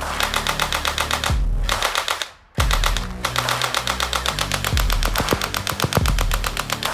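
Electronic toy gun playing its rapid-fire sound effect: a fast, even rattle of shots over looping electronic tones. It stops for a moment about two and a half seconds in, then fires again.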